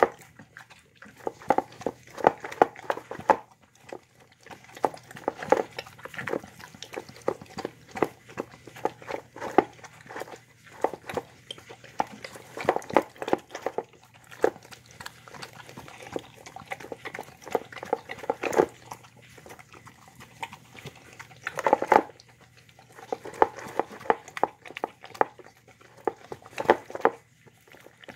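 A Shar-Pei and pit bull mix dog eating soft food from a bowl: a steady run of wet smacking, chewing and licking, with its tongue and muzzle working against the bowl. A few sharper, louder clicks stand out, the loudest about three quarters of the way through.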